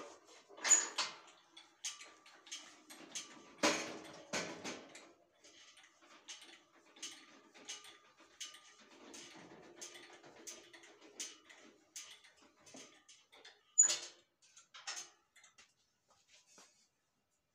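Irregular metallic clinks, taps and knocks of hand work on a steel band saw mill frame as guard parts are fitted, some strikes leaving a faint ring. The loudest knocks come about a second in, at about four seconds and at about fourteen seconds, and the tapping thins out near the end.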